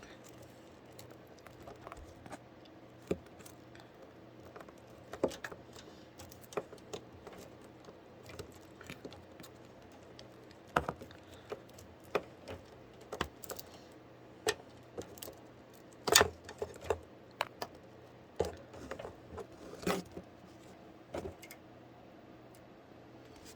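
Irregular light clicks, taps and knocks of handling, a few loud ones about two thirds of the way in, over a faint steady hum.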